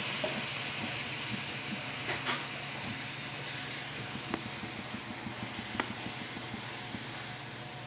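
Omelette frying in a pan over a gas burner, a steady sizzling hiss with a low hum beneath, and a few sharp clicks of chopsticks and a spatula against the pan.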